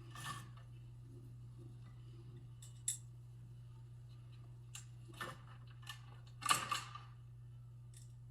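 Scattered light clicks, taps and a short clatter of a plastic space heater housing and its small screws being handled during disassembly, the loudest cluster about two thirds of the way through, over a low steady hum.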